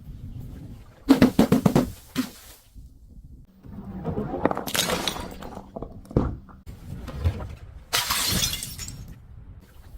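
Glass bottles breaking and crunching in several bursts: one about a second in, another around four to five seconds, a sharp crack near six seconds, and a dense shattering burst near eight seconds.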